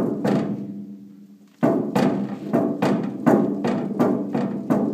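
Hesston swather's header auger being rocked by hand in its failed bearing, knocking with ringing metallic clunks. One clunk rings out at the start, then from a second and a half in the clunks come about three a second: play from the worn-out auger bearing.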